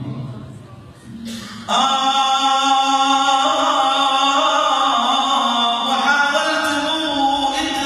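Unaccompanied religious singing (inshad) at a dhikr circle: the low group chanting dies away, and about two seconds in a solo male voice comes in loudly, holding long, ornamented notes without words.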